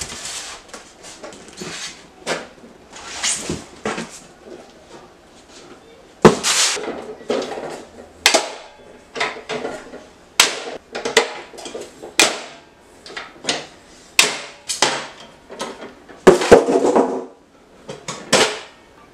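A folding metal chop saw stand and its styrofoam packing being handled: an irregular run of knocks, clanks and scrapes as the stand is lifted from its box and its legs are swung out. The sharpest knocks come about six, ten and sixteen seconds in.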